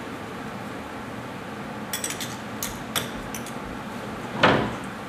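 Light metallic clicks from wheelchair tie-down and seatbelt fittings being handled: a quick cluster about two seconds in and two more before three seconds. A louder thump comes near the end.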